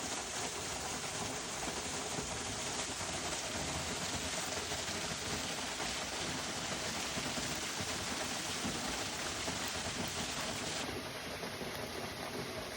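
Waterfall rushing steadily as an even hiss of falling water. Near the end it turns duller, with less of the high hiss.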